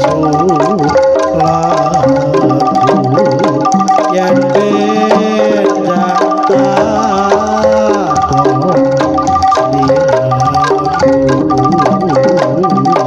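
Live Javanese jaranan gamelan music, loud through a large sound system: struck bronze metallophones repeat short interlocking notes over hand-drum patterns, without a pause.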